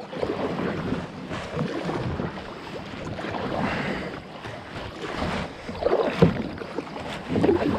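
Kayak paddling: a double-bladed paddle dipping and pulling through calm water, with splashing and dripping off the blades. The strokes come in uneven surges, louder near the end.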